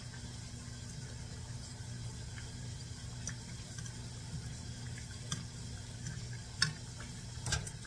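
Dumpling dough deep-frying in hot oil in an aluminium pot: a steady bubbling sizzle. A few sharp clicks of a metal fork against the pot as the dumplings are turned, the two loudest near the end.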